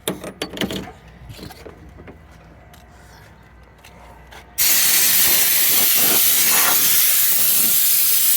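A few knocks and handling sounds, then a little past halfway a compressed-air blow gun fed at 100 psi opens up in a loud, steady hiss, blasting dust out of a car's back seat.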